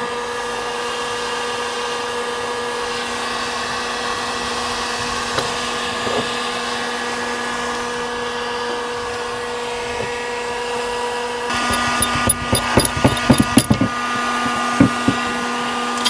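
Electric heat gun running steadily, its fan motor giving a constant hum, aimed at a boat's P bracket mounting to free it. About twelve seconds in the hum changes tone, and a quick run of sharp clicks and knocks follows over the next few seconds.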